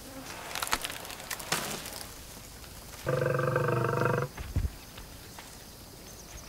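African elephant giving one loud, buzzy, steady-pitched call lasting about a second, about three seconds in. A few short crackles come before it.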